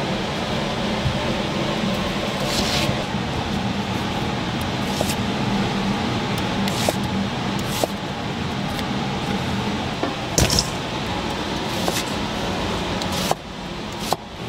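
Kitchen working noise: a steady hum under a constant rushing noise, with scattered light clicks and a few short hisses. The level drops suddenly about 13 seconds in.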